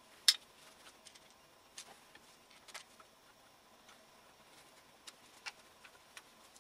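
Sparse light clicks and taps of small metal parts and tools being handled during engine work, with one sharper click just after the start.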